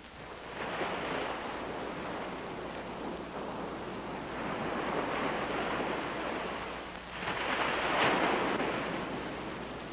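Sea surf: waves breaking and washing in three slow swells, each rising and fading, the third the loudest.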